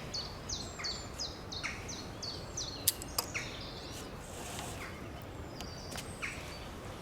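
A bird calling in a quick series of short, high, falling notes, spaced about a third of a second apart and thinning out after a few seconds, over steady outdoor background noise. Two sharp clicks come about three seconds in.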